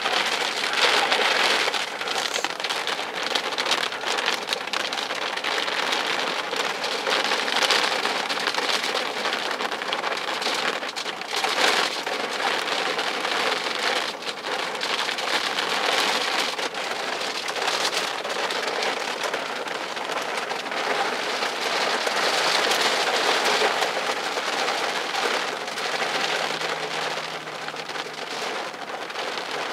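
Heavy rain beating on glass, a dense hiss that swells and eases in waves every few seconds.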